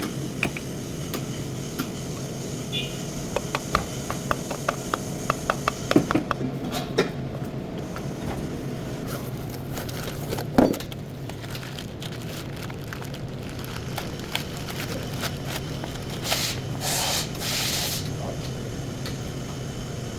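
Hand work on a car's front axle: a run of sharp metallic clicks, a single heavy knock about halfway through, and a few bursts of hiss near the end, over a steady low hum.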